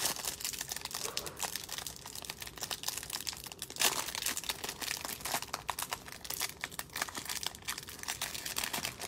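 Plastic trading-card pack wrapper crinkling and crackling as hands twist and pull at it, trying to tear it open, with a sharper crackle about four seconds in.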